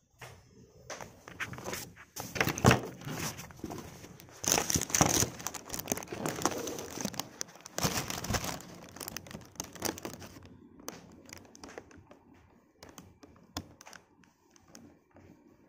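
Handling noise: rustling and crinkling with clicks and knocks as the phone recording is picked up and moved against fabric. The noise is dense for about ten seconds, then thins to scattered clicks.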